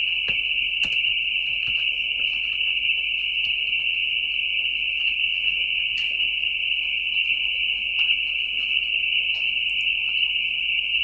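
A steady high-pitched hiss runs throughout, with faint scattered clicks of computer keyboard typing and mouse clicks.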